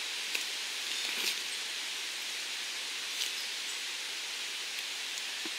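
Steady forest background hiss, with a few soft clicks and rustles from hands picking chanterelle mushrooms in the leaf litter.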